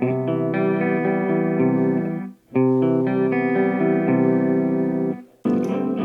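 Clean electric guitar chords played through a Marshall guitar cabinet, ringing in sustained phrases that stop short twice, about two and a half seconds in and again near the end, before a rougher-sounding phrase starts.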